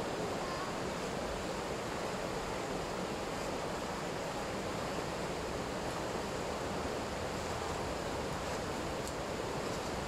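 Fast-flowing river rushing steadily over rapids.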